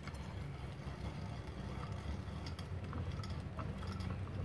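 A steady low rumble, with a few faint clicks as the cast-iron swivel bench vise is handled.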